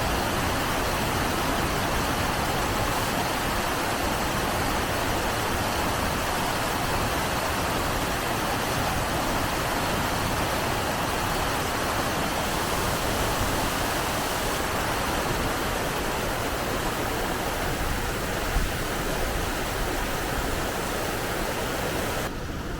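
Steady rushing of flowing water, like water pouring through a weir or sluice. It runs evenly and thins abruptly just before the end.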